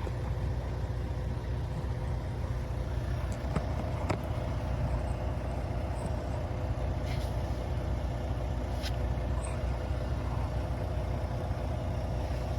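Steady low mechanical drone with a faint constant tone, with a few light clicks.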